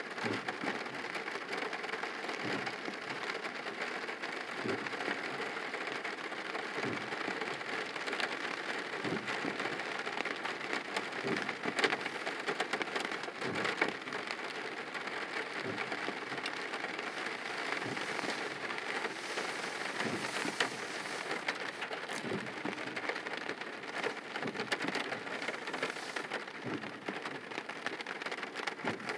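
Steady rain falling on a car's roof and windshield, heard from inside the car, with a soft low thud about every two seconds.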